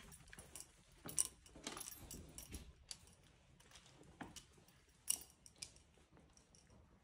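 Light metallic jingling and irregular clicks as a shiba inu walks on a leash over stone tiles: the leash clip and collar hardware rattling, with claws and steps ticking on the stone, loudest about a second in and again about five seconds in.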